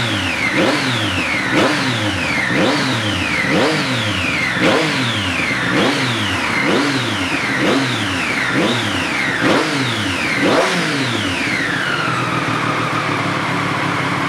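Triumph Street Triple 765's inline three-cylinder engine through an SC-Project SC1-R exhaust, revved in about eleven quick throttle blips, roughly one a second. Each blip rises sharply and falls away more slowly. Near the end the engine drops back to a steady idle.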